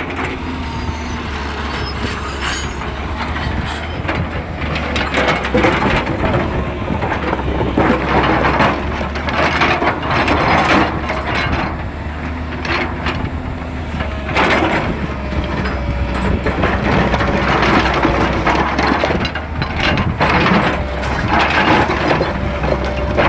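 Excavator engine running steadily while its bucket scrapes and crunches through stones and rubble, in irregular bursts of grinding and cracking.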